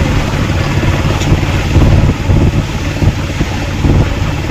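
Wind rushing and buffeting the microphone, over steady engine and road noise from an open-sided vehicle driving on a wet road.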